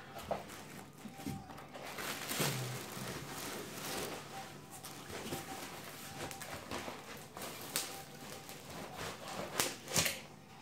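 Rustling of plastic wrap and foam packaging in a cardboard box, with irregular knocks and bumps as a rear shock absorber is lifted out and handled. The loudest knocks come near the end.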